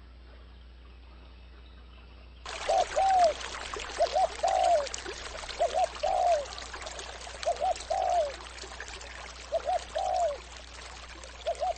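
Running water like a stream, setting in suddenly about two and a half seconds in, with a bird repeating a short two-note call about every one and a half to two seconds.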